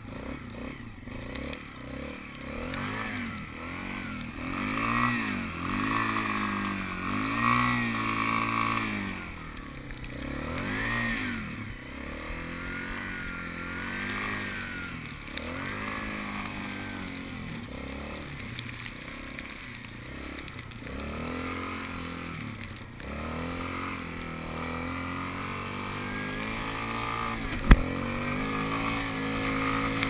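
ATV engine revving up and down over and over as it is ridden through deep snow, the pitch rising and falling with the throttle. A single sharp knock stands out near the end.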